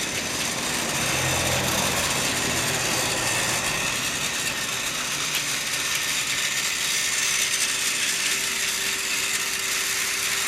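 Two battery-powered Trackmaster toy engines running together around plastic track: a steady whir of their small geared drive units, with their trailing trucks and coaches rolling along the track.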